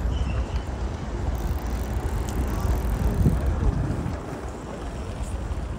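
Steady low rumbling vehicle noise, swelling briefly about three seconds in.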